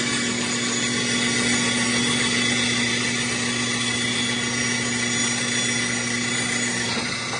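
Electric power tool running steadily against the rusty steel of an old fireman's axe head, abrading off rust and slag.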